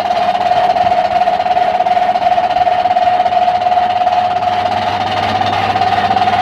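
Lathe running at a steady speed with a 15-inch wheel mounted and spinning, giving a steady high whine over a low hum.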